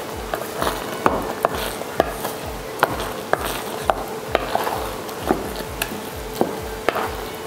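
Wooden spatula mashing and stirring a thick vegetable bhaji in a metal kadai, giving irregular sharp knocks and scrapes against the pan about twice a second.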